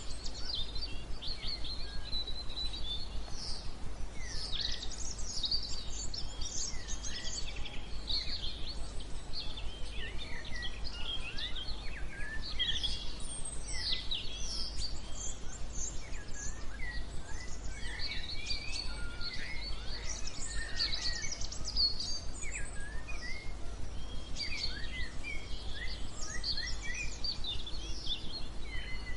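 Many songbirds chirping and twittering over one another, over a steady bed of white noise with a low rumble underneath.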